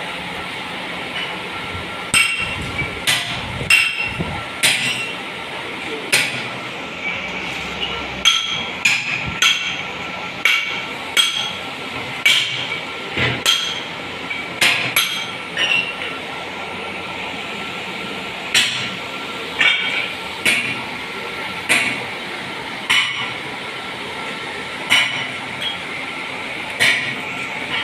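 A hammer striking metal again and again at an uneven pace, each blow a sharp ringing clink, over a steady hiss.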